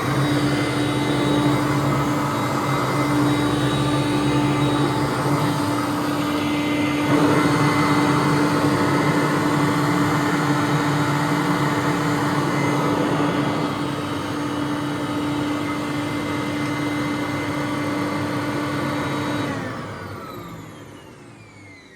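A 2004 Hoover Conquest upright vacuum cleaner runs steadily with a constant motor hum. Near the end it is switched off and winds down, its pitch falling as it fades.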